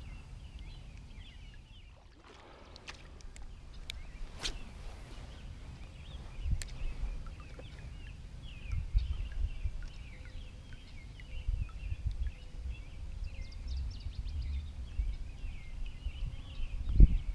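Many small birds chirping in the background, over an uneven low rumble, with a few sharp clicks early on.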